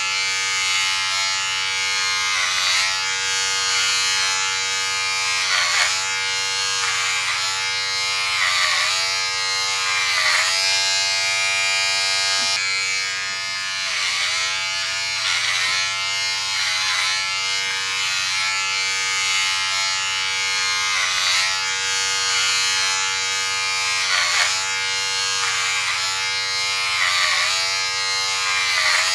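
Electric hair clipper buzzing steadily, its pitch dipping briefly every second or two.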